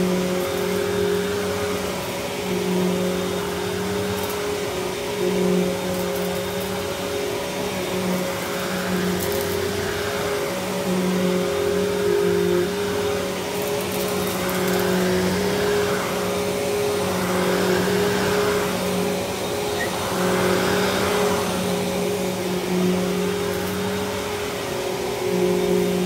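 Riccar Vibrance Classic upright vacuum cleaner running on carpet, being pushed back and forth. A steady motor hum is joined by a rushing suction sound that swells and fades with each stroke, every two or three seconds.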